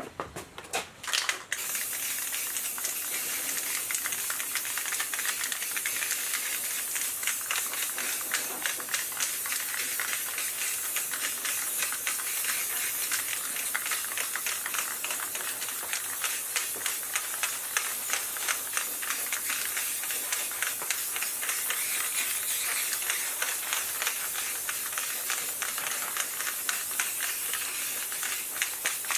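A high-pressure spray hissing steadily, with dense fine crackling through it, starting after a few knocks about a second and a half in.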